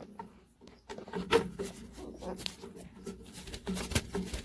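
Hard plastic parts of a bulk candy machine's brush-wheel dispensing mechanism being handled and fitted into place: a run of irregular clicks and knocks starting about a second in.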